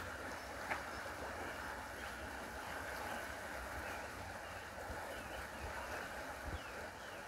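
Steady outdoor rushing noise with wind rumbling on the microphone.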